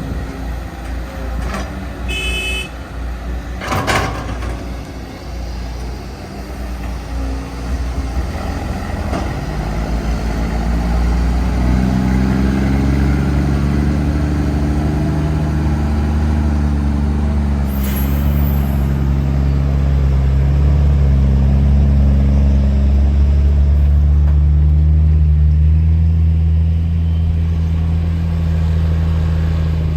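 Diesel engine of a Cat 315D L hydraulic excavator working under load while loading a dump truck. The engine note builds about ten seconds in and then holds a loud steady drone. Early on there is a brief high beep and a sharp knock.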